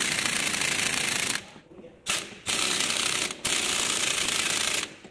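Pneumatic impact wrench hammering in four bursts with short pauses between them, tightening the bolts that hold the new front wheel hub to the steering knuckle.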